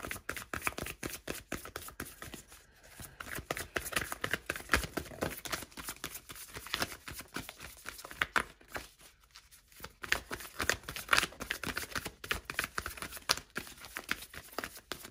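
A deck of tarot cards being shuffled overhand by hand: a quick, irregular run of soft card slaps and flicks, easing off briefly twice.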